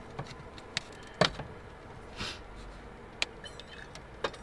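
Coffee-making gear being handled by hand: scattered sharp clicks and knocks of metal and plastic parts, about one a second, the loudest about a second in, with a short soft hiss about two seconds in.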